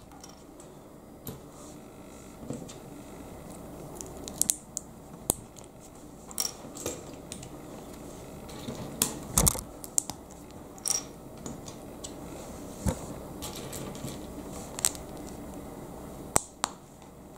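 Lego bricks being handled and pressed together, giving a scatter of small sharp plastic clicks every second or two, the loudest about halfway through.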